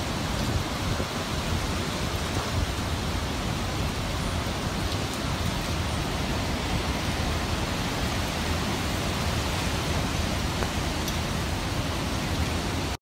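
Steady hiss of hurricane wind and rain, an even wash of noise with a low rumble underneath.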